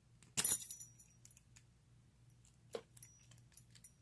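Keys on a brass padlock jingling in one short burst about half a second in, followed by a few faint metallic clicks as the lock is worked with a pick.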